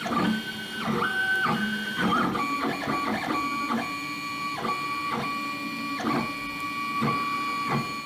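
3D printer's stepper motors whining at steady pitches as the print head makes a series of moves. For the first two seconds the tone is higher and broken into short runs; after that it settles into a lower tone that stops and restarts about every three-quarters of a second, with small knocks at each change of move.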